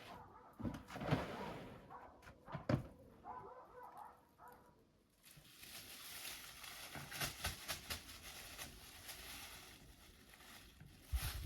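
A dog whining in short high calls in the first half, with two sharp knocks about one and three seconds in. From about halfway there is a steady hiss with many small clicks.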